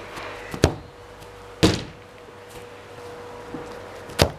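A football being kicked and struck on a grass lawn: three sharp thumps, one about half a second in, a louder one with a longer tail a second later, and a third near the end as the ball is kicked again.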